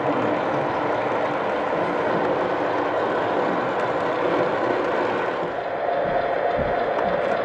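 MTH Premier O-scale two-rail model of a Union Pacific SD45 diesel locomotive running along the track toward the listener, a steady mechanical running noise. A steady whine comes in about five and a half seconds in as it draws close.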